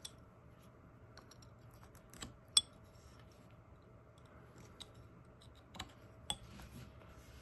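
Carving knife cutting into a very hard wooden stick: a few sharp, scattered clicks as the blade bites, the loudest about two and a half seconds in, over a faint background.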